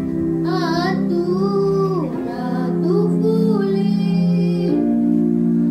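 A song: a high singing voice with vibrato carries a melody over steady held chords.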